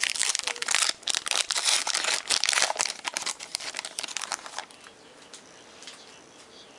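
Crinkling and tearing of a baseball card pack wrapper as a pack is opened. It stops about four and a half seconds in.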